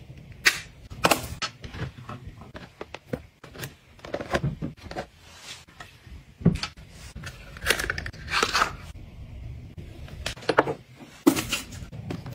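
Close-up handling of makeup and skincare packaging: an irregular series of sharp clicks and taps with stretches of rustling, from a plastic compact case, a cabinet door and cardboard product boxes being moved and set down.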